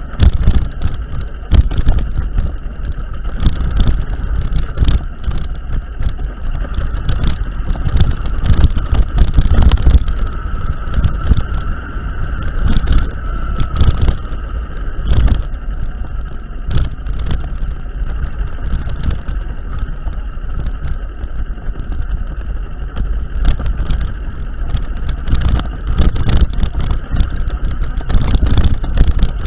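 A vehicle travelling over a badly broken, rough mountain-pass road. A heavy low rumble runs throughout, broken by frequent jolting knocks and rattles from the rough surface.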